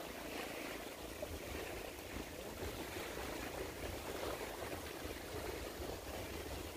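Steady outdoor ambience at the water's edge: an even rushing noise with a low rumble beneath it and no distinct events.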